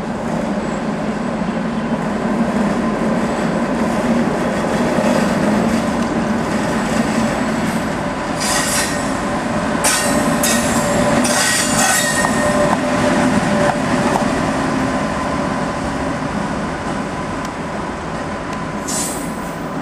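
Class 86 electric locomotive 86614 running light through station pointwork with a steady electric hum, broken by several short high wheel squeals about eight to twelve seconds in and once more near the end.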